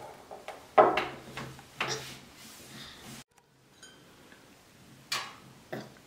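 A few separate knocks and taps of tableware being handled on a table: a small bowl, a plate and a stainless-steel baking tray, the loudest about a second in and two more near the end.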